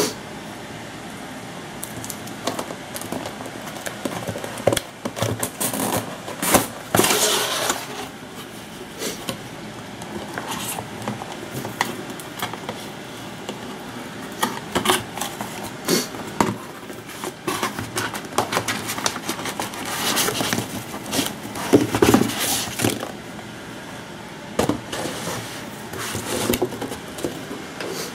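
Cardboard shipping carton being opened and handled by hand: irregular scraping, rustling and crackling of cardboard and packing with scattered knocks, over a steady background hiss.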